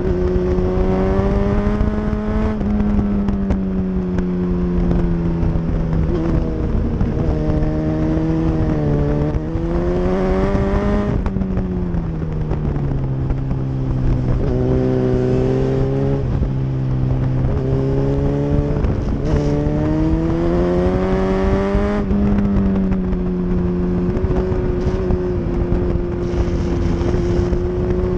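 Sport motorcycle engine heard at speed on a race track, its note climbing and dropping several times as the rider works the throttle, with a longer low stretch in the middle. A steady rush of wind runs under the engine.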